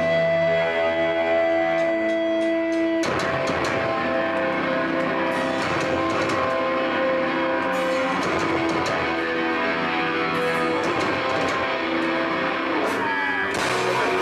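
Live hardcore band playing loud: held electric guitar notes ring on their own, then about three seconds in the whole band comes in with drums and distorted guitars.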